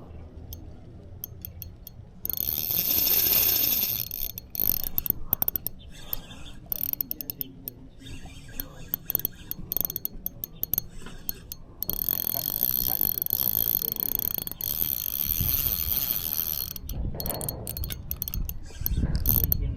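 Spinning fishing reel being cranked in two spells of steady gear whirring, with small clicks of handling between them.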